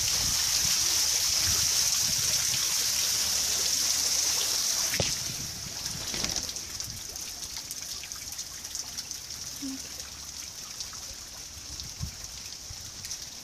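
Heavy rain pouring down in a steady hiss. About five seconds in it drops suddenly to a lighter, quieter rain.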